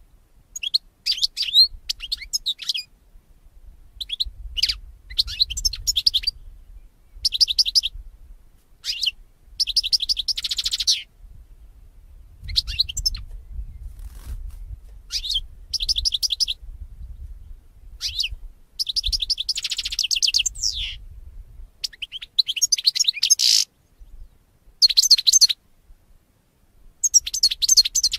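European goldfinch singing: a run of quick, high twittering and trilling phrases, each about a second long, with short pauses between them.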